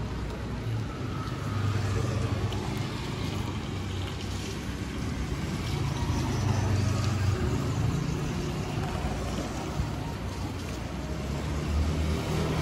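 Street traffic: motor vehicles going past, their engine noise swelling and fading twice.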